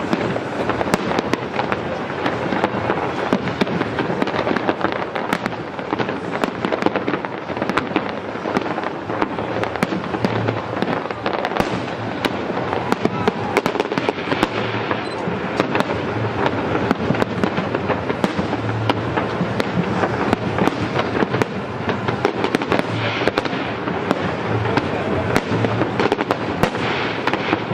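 Aerial fireworks going off continuously: a dense crackle of many sharp pops, with low thuds from bursting shells every few seconds.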